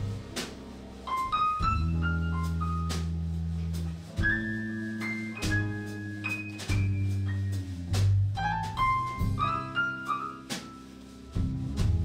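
Live band playing an instrumental passage of a slow blues song: held low chords, a high lead melody with some sliding notes, and drums keeping time.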